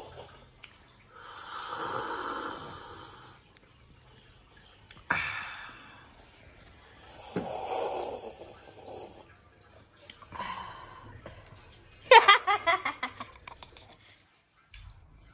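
Two long, loud slurps of hot tea sipped from a mug, each lasting a couple of seconds, with a sharp knock between them. A short burst of laughter near the end is the loudest sound.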